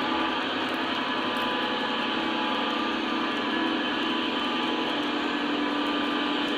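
Electric model coal train rolling past on its track: a steady whirr of motors and wheels.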